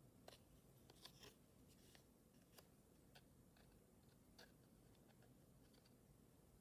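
Near silence, with faint, scattered small clicks and snips of hands handling pipe-cleaner doll materials.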